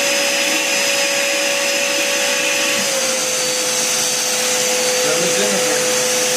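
Vacuum cleaner running steadily, its motor whine dropping slightly in pitch about three seconds in.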